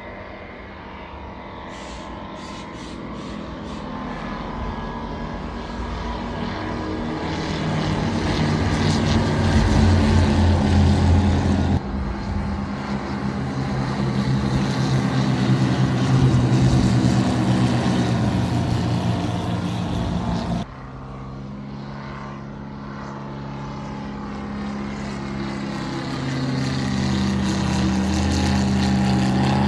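Low-flying airplanes passing overhead, a steady engine drone that grows louder as each one nears. It cuts off abruptly twice, about twelve and twenty-one seconds in, and each time starts building again.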